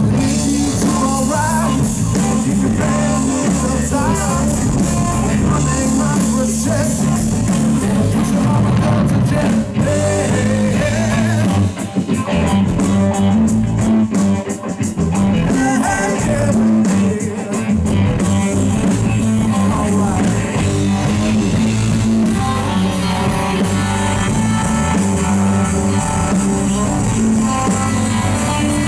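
Live electric blues band playing: a Stratocaster-style electric guitar over bass guitar and a drum kit with cymbals, in a driving rock-blues style.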